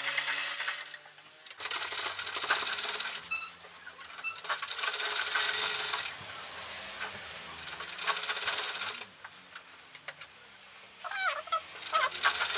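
Sewing machine stitching through cloth in about five short runs of a second or two each, with brief stops between them.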